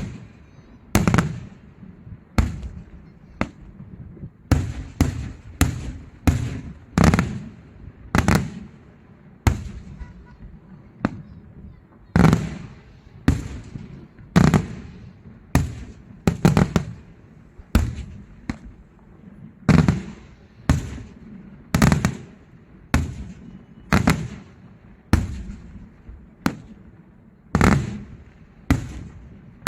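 Daytime fireworks display: aerial firework shells bursting in a steady series of loud bangs, about one a second, each trailing off in an echo.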